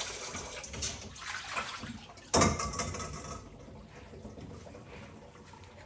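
Water running from a kitchen tap, with one loud knock about two seconds in; the water stops about a second later.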